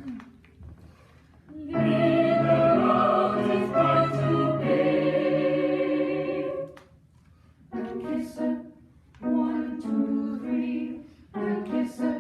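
A choir singing together unaccompanied: a long held chord lasting about five seconds, then three short sung phrases with brief breaks between them.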